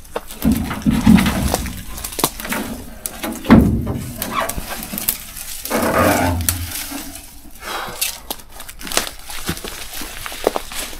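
Irregular knocks, scuffs and clatter of someone climbing down off a fire truck and moving about, with heavier thumps about half a second, three and a half, and six seconds in.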